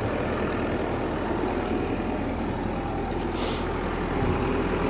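Heavy engine running steadily, with a short hiss about three and a half seconds in.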